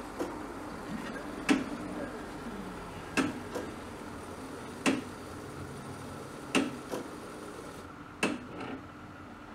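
Robe Colorspot 250 AT moving-head light running its reset: a sharp mechanical click about every second and a half, each followed by a softer click, over a steady hum.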